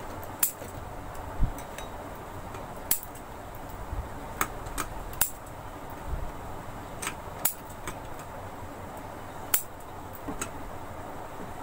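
Scissors snipping off excess paper shims wedged into an air cooler's plastic louvre pivots, heard as scattered sharp clicks over a steady background hum.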